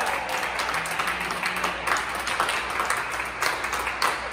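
Applause: a group of people clapping hands, with many separate claps standing out.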